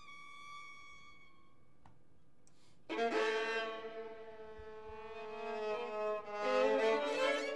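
Two violins: a faint, high held note fades away, and after a short hush both come in loudly at about three seconds with long sustained bowed notes held together, the pitches shifting and sliding near the end.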